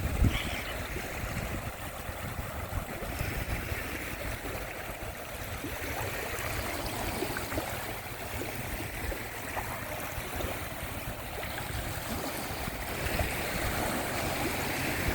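Sea waves washing onto a sandy beach. The surf hiss swells and fades every few seconds over a steady low rumble.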